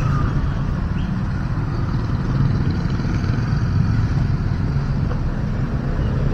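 Steady low rumble of motor vehicle engines.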